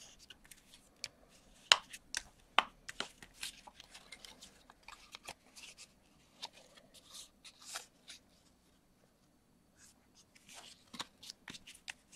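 Hands folding and creasing a strip of cardstock: short dry rustles and scrapes of paper with a few sharp taps. A quiet pause of about two seconds comes past the middle before the handling starts again.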